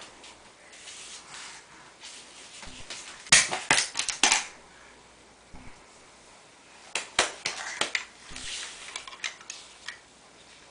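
Hard toys knocking and clattering as they are handled: a few sharp knocks about three seconds in, then another cluster of clicks and knocks about seven seconds in.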